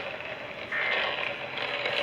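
Emergency Alert System end-of-message data burst: a short, buzzy warble of two alternating digital tones about a second in, the middle of the three bursts that close an EAS activation. A steady hiss of radio static runs under it.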